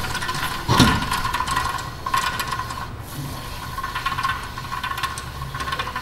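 Rear wheel hub bearing of a Toyota Prius spun by hand, giving a steady rough rattling grind from rust and debris inside the bearing, with a knock near the start. The sound is the sign of a worn, rusty bearing with junk inside it.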